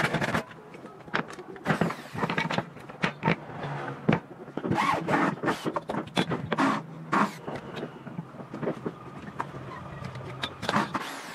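Old wooden boards being handled on a wooden workbench: a run of sharp knocks and clatters with a few short scrapes as they are set down and slid into place.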